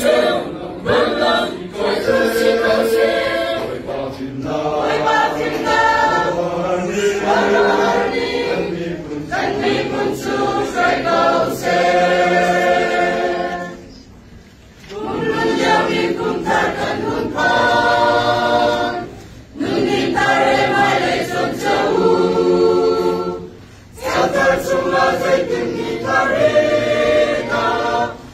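Mixed choir of women's, men's and children's voices singing a hymn unaccompanied, phrase by phrase, with a longer break about halfway through.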